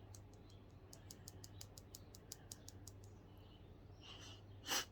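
Faint small clicks in a quick, irregular run, about five a second, for the first three seconds. Near the end comes a short, sharp sniff through the nose, taking in Chhinkni sneezing powder.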